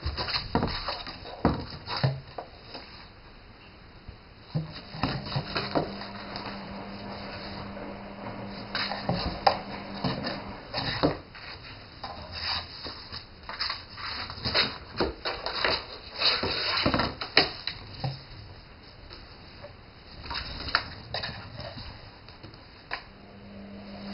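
A cat scrabbling and batting about in a cardboard box: irregular knocks, thumps and scratches of paws, body and a catnip ball against the cardboard.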